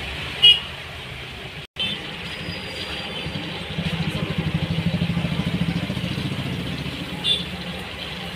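Steady low motor hum that grows louder and pulses rapidly for a couple of seconds in the middle, with two short sharp clicks, one near the start and one near the end.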